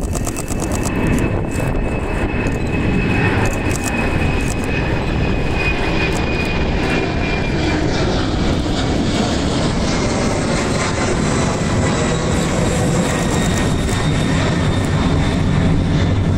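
Twin-engine jet airliner climbing out just after takeoff and passing overhead: loud, steady jet engine rumble with a high whine that slowly drops in pitch.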